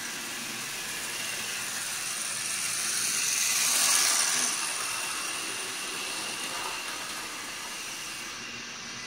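Model railway steam locomotive running past close by, its motor and wheels on the track making a steady hissing rattle that swells to a peak about four seconds in and then fades.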